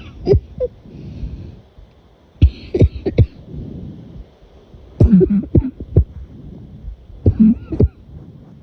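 A person coughing in four bouts, a few sharp coughs in quick succession each time, with quieter breathing-like sound between the bouts.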